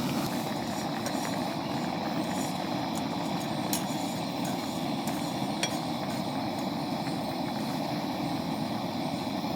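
Heavy, torrential rain falling steadily in a continuous low rushing noise, with a couple of sharp drip ticks in the middle.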